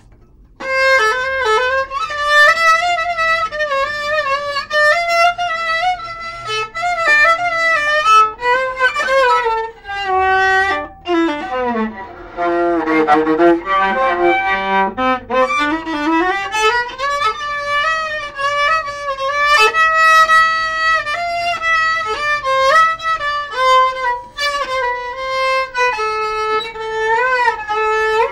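Solo viola played with the bow: a slow melody that starts about half a second in, with a long downward slide to low notes around the middle and a slide back up.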